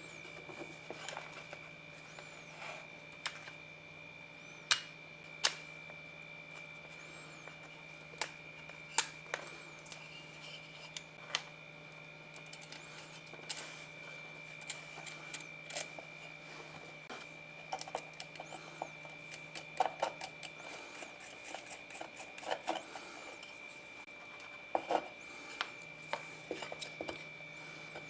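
Irregular light clicks and taps of small parts being handled on a workbench, over a steady faint hum and a thin high-pitched tone.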